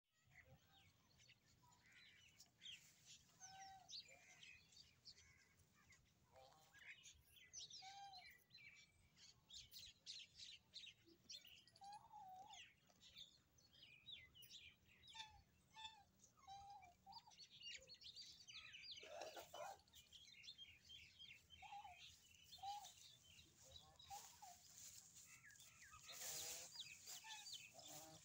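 Faint outdoor farmyard ambience: small birds chirping and twittering over and over, with short lower calls every few seconds and two louder, longer calls in the later part.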